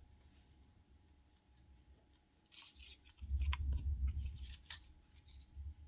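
Thunder rumbling low, swelling about three seconds in and dying away a second and a half later, under scissors snipping and paper rustling close by.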